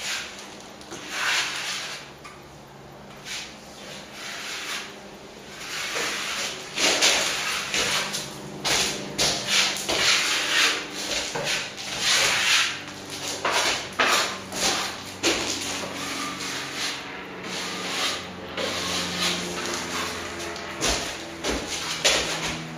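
Steel plastering trowel scraping over a nearly set coat of corner cement in repeated, uneven strokes, a mostly dry polish. The strokes come quicker and louder from about six seconds in.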